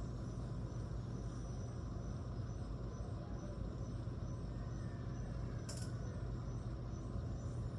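Steady low hum with faint background hiss, broken by a single sharp click about six seconds in.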